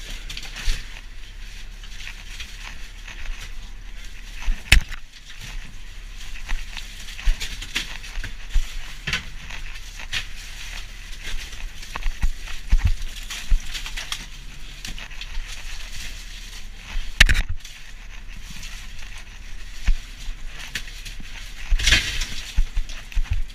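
Gloved hands digging through fish packed in crushed ice in a fish hold: irregular crunching and scraping of ice with wet slithering of fish, and a few sharp knocks, about five seconds in, around seventeen seconds and near the end. A low steady hum runs underneath.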